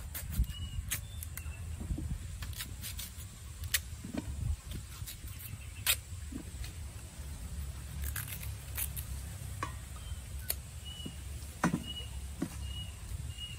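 Kitchen knife peeling an unripe green mango by hand: irregular small clicks and scrapes as the blade cuts through the skin.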